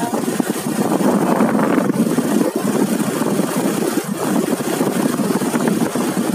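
Suzuki motorcycle under way, its engine running steadily under a rough, rushing noise of moving air.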